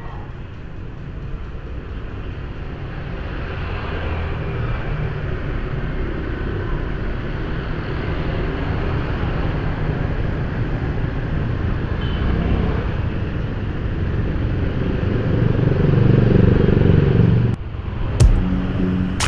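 Motorbike traffic noise heard from a moving scooter on a city street: a steady rumble of small engines and road noise that grows louder as the ride picks up. It cuts off suddenly near the end, followed by a few sharp clicks.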